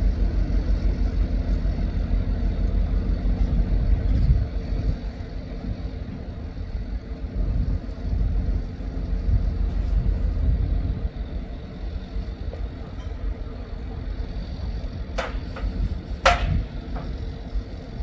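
Engine of a mobile boat hoist running with a low, steady rumble, heavier for the first four seconds and then easing off. Two sharp clicks about a second apart near the end.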